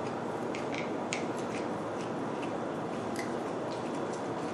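Close-miked eating: soft, wet mouth clicks and small crunches from chewing noodles, kimchi and cucumber, scattered over a steady hiss.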